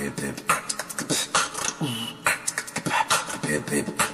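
Human beatbox sample beat: bass-drum, snare and hi-hat sounds made with the mouth in a fast repeating pattern. About two seconds in, a mouth-made samba whistle lands on the bass-drum beat: a short high whistle followed by a low voiced 'ooh' that falls in pitch.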